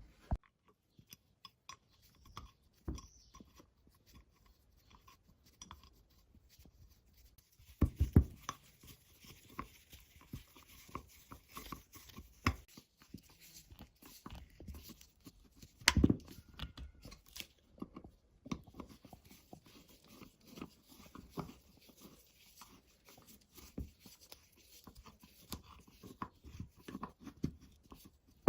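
Irregular clicks, knocks and scraping from hand work on a vise's parts, with the loudest knocks about eight seconds in and again about halfway through.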